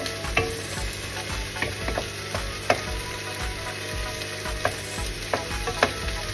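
Onions, garlic and tomatoes sizzling in a nonstick wok as a wooden spatula stirs them, with irregular sharp taps and scrapes of the spatula against the pan.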